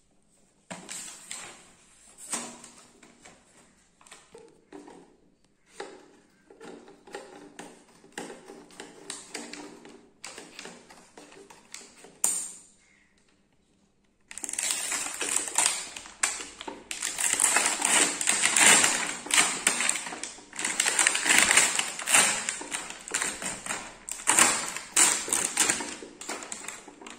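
Clear plastic blister packaging of a toy gun crinkling and crackling as it is handled and pulled off its cardboard backing: scattered light clicks and rustles at first, then, after a short pause about halfway through, dense continuous crackling.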